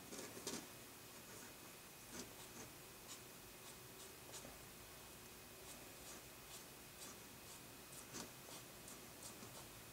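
Faint scratching of a pencil-like drawing tool on paper, in short separate strokes with pauses between them, the strongest about half a second in.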